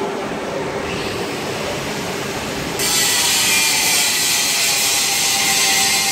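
Automatic CNC drilling machine running, with steady mechanical noise as the drill head travels over the table. About three seconds in, a louder, hissier sound cuts in abruptly and carries on steadily.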